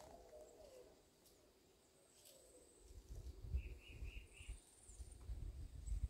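Faint birdsong over quiet countryside: low, wavering calls in the first second, then four quick high chirps a little past halfway. A low rumble comes in during the second half.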